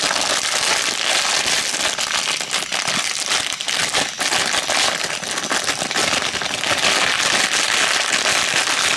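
Plastic blind bag crinkling as hands squeeze and work it open, a dense run of crackles close to the microphone.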